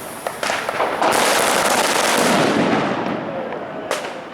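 Firecrackers going off: a few sharp bangs, then about a second in a loud, dense crackle of many small reports that swells and dies away over about two seconds, with another sharp bang near the end.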